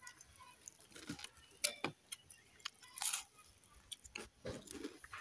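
Eating sounds: chewing of watered rice eaten by hand, with a few short crunches and clicks as bites are taken from a fried piece.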